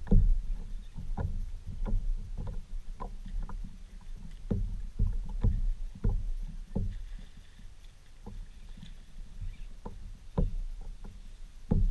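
Repeated dull knocks and thumps on a fishing kayak's hull, about one or two a second, over a low steady rumble. The loudest knocks come just after the start and near the end.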